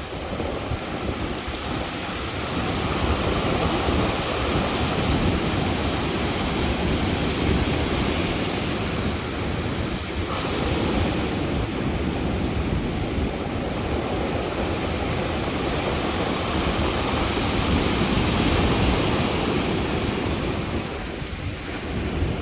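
Stormy sea surf breaking on the shore: a dense, steady roar of waves that swells at times as bigger breakers come in, with wind rumbling on the microphone.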